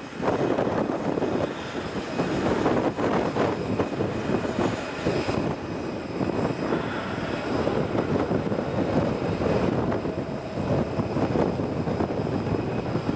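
Jet aircraft engines running: a steady rushing noise that swells and dips, with a faint high whine on top.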